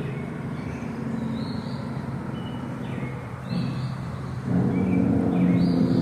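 Steady low engine hum that grows louder about four and a half seconds in, with a few short, high bird chirps over it.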